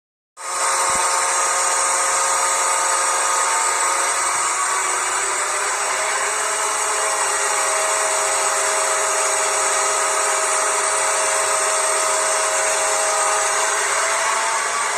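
Dapol N gauge Class 68 model locomotive's DCC sound decoder playing a recorded diesel engine through its tiny onboard speaker. It starts about half a second in and runs steadily as several held tones, which shift in pitch about four to five seconds in.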